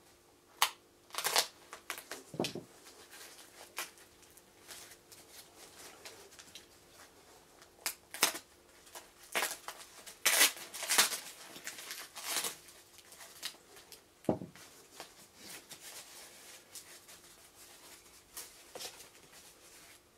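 Packing wrap rustling and crinkling in irregular bursts as it is cut and pulled off a small packed item, a remote control; the busiest stretch comes about ten seconds in.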